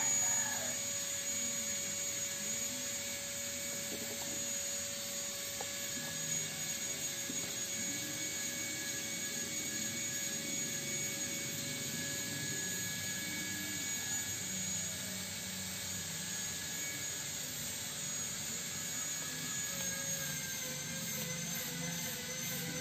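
Steady mechanical drone with a few thin, steady whining tones over it; the tones waver slightly in pitch near the end.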